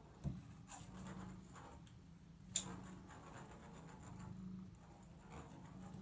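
A ping pong ball being batted around a bathtub by a cat, giving a few light taps and clicks, the sharpest about two and a half seconds in, over a faint steady low hum.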